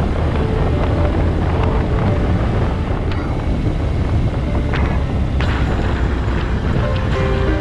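Steady wind rushing over the microphone of a moving motorcycle, with the motorcycle's engine running underneath.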